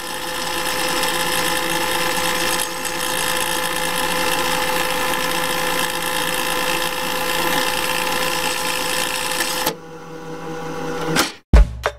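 Countdown-intro sound effect: a steady whirring, hissing static noise with a few held tones, which drops away about ten seconds in, swells briefly and cuts off. Music with heavy drum thumps starts near the end.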